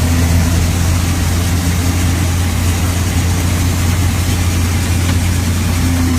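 Combine harvester running steadily in a corn field, heard from inside the cab: a loud, even, low drone of engine and machinery.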